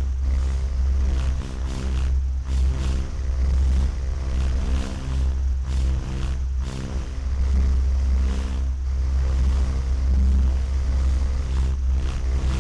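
A vehicle engine running with a deep, steady rumble.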